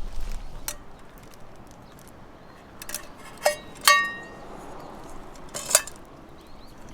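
Light metal clinks from camp gear being handled: sharp clicks, and two knocks about three and a half and four seconds in that ring briefly like thin metal struck.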